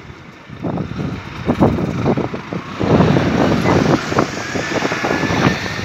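Town-centre road traffic and a lorry's diesel engine running, mixed with irregular knocks and rustle from a hand-held phone carried while walking. A faint thin whine comes in near the end.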